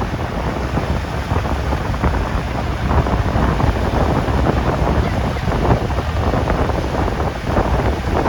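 Strong wind buffeting a phone's microphone: a loud, steady rush of noise with a heavy low rumble, growing a little louder about three seconds in.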